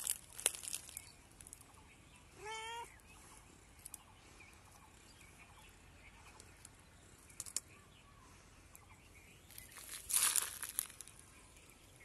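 A cat moving on tree bark, with scattered scratchy clicks and a louder rustling scrabble about ten seconds in. One short wavering call sounds about two and a half seconds in.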